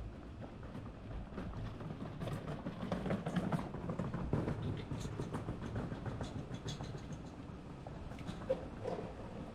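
Busy street-market ambience: a low rumble with scattered clicks and clatter, swelling louder a few seconds in.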